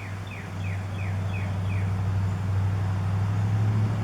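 A bird calling a quick series of short, falling chirps, about three a second, that stops about two seconds in, over a steady low hum that grows louder.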